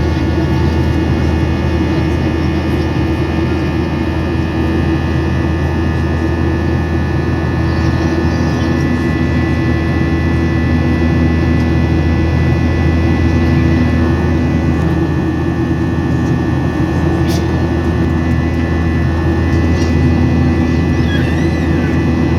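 Steady cabin drone of a Boeing 737-800 in flight, heard from inside the passenger cabin: its CFM56 jet engines and the airflow making a loud, even roar with a low hum and a few steady whining tones.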